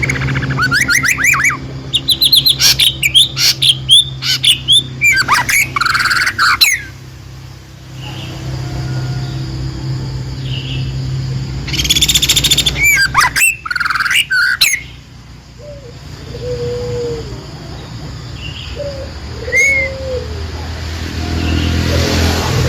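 Songbirds chirping and twittering in quick, dense runs of high notes, loudest early on and again midway, with softer lower whistles later, over a steady low hum.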